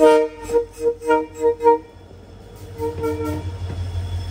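Short repeated flute-like background music notes for about the first two seconds. Then the low rumble of a passing train on the crossing line builds from about three seconds in, with a faint high wheel squeal starting near the end.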